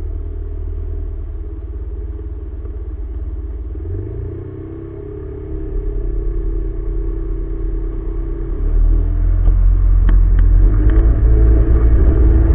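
Motor scooter engines idling in a tightly packed queue of scooters, a low steady rumble. About four seconds in an engine note rises, and from about nine seconds the rumble grows clearly louder as the scooters pull away.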